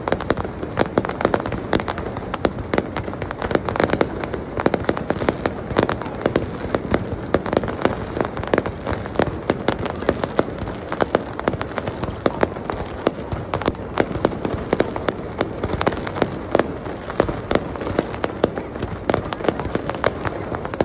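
Fireworks display: a dense, continuous barrage of sharp cracks and bangs, many a second, without a break.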